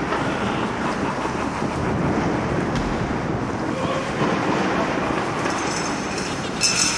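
Haunted-house storm sound effect: a loud, steady rumble of thunder mixed with wind and rain-like hiss.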